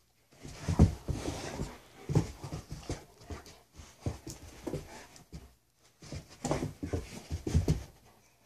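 Young shepherd-type dogs panting and scuffling on carpet as they chase a laser pointer dot, in irregular bursts with short pauses.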